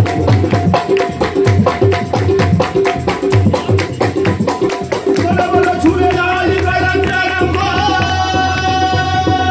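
Qawwali group playing live: a brisk, even beat of hand claps with dholak and tabla strokes, about five a second. From about halfway through, long held notes of harmonium and voices come in over the beat.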